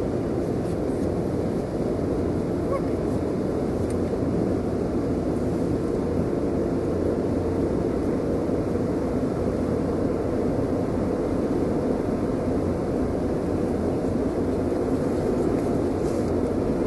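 Automated car wash machinery heard from inside the closed car: a steady, even rush of running equipment that does not change.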